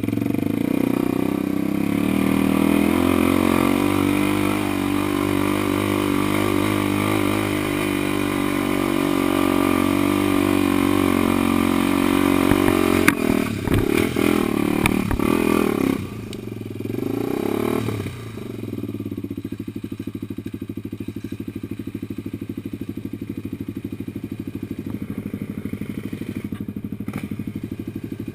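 Off-road vehicle engine running hard under load on a hill climb, with clattering knocks about halfway through. After a short rise in revs it settles to a steady idle for the last ten seconds.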